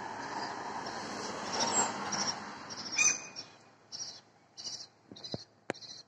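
A gull chick peeping over and over, short high-pitched peeps about one to two a second. Street noise fills the first half and dies away about halfway through.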